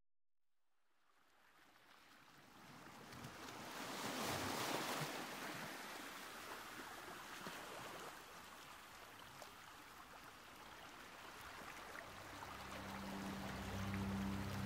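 Ambient meditation music fading in: a soft rushing wash like surf swells about four seconds in and then ebbs, and about twelve seconds in low sustained notes enter beneath it.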